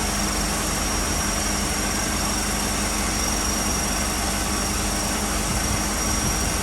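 A steady machine drone, like an engine at idle, with a constant thin high whine over it and no change in pitch.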